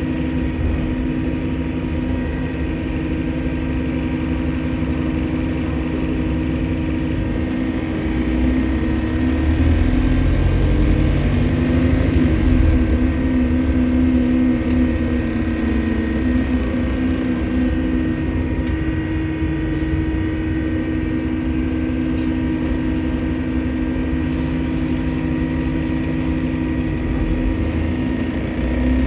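Diesel engine of a London double-deck bus running, with a steady high-pitched whine over the engine drone, which the uploader takes for a leaking turbocharger. The engine grows louder and shifts in pitch for several seconds near the middle, then settles back.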